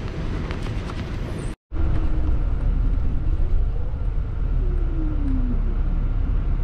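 Steady background hum that cuts off abruptly about a second and a half in, then the low rumble of a bus riding through city traffic, heard from inside the bus. A faint tone rises and then falls about halfway through.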